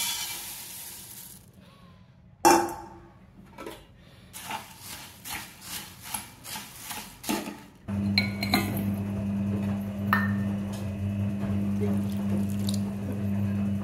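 Puffed rice poured into a steel pan, then a metal spatula clinking and scraping against the pan as the rice is stirred, about two strokes a second. About two thirds of the way through, water pours onto jaggery in a steel pot over a steady low hum.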